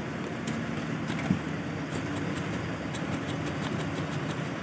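Steady low rumble of background street noise, with a sharp tap about a second in. Near the end comes a run of light ticks as dry paan filling is shaken from a tin onto betel leaves.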